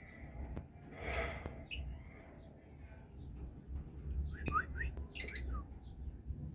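Caged Oriental magpie-robin (kacer) calling: a harsh scratchy call about a second in, then short rising whistled notes and a quick run of high chirps near the end.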